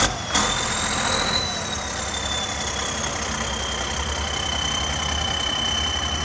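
Ford New Holland 7840 tractor's turbocharged six-cylinder diesel pulling under load up a loading ramp, with a high turbo whistle over the engine's low running sound. The whistle rises in the first second or so, then slowly falls as the engine settles. Two sharp knocks come right at the start.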